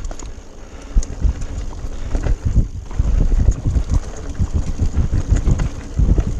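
Mountain bike running down a rough, rocky trail: a dense, irregular clatter of tyres striking rocks and roots and the bike rattling, with wind buffeting the microphone. It gets louder about three seconds in.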